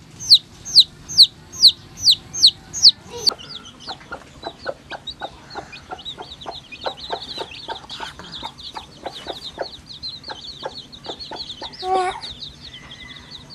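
A chick peeping loudly, a bit over two high falling peeps a second, for about the first three seconds. Then a brood of chicks cheeping softly together over a hen's short, rapid clucks, with one louder call from the hen near the end.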